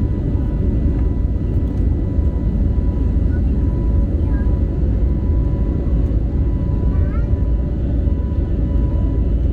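Steady cabin drone of an Airbus A320neo in flight, heard from inside the cabin: a deep engine and airflow rumble with thin steady hums over it.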